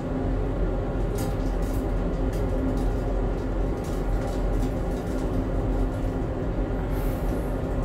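Marinated pork frying in a metal pot, stirred with a utensil that gives scattered clicks and scrapes against the pot, over a steady low hum.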